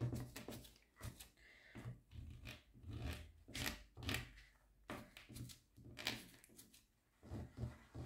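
Applicator tip of a bottle of liquid diamond-painting sealer pressed and rubbed over the resin drills, making short, irregular scraping strokes, a few a second.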